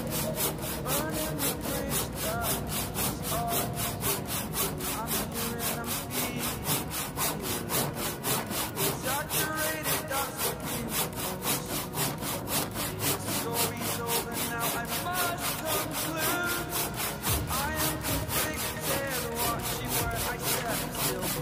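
Carl Schlieper "Tjap Mata" hand saw cutting through a 10 x 15 cm factory-processed timber block, in a fast, even rhythm of saw strokes.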